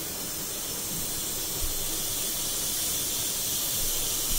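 Steady hiss from a gas stovetop where a pressure cooker sits on a lit burner, with a soft knock about a second and a half in.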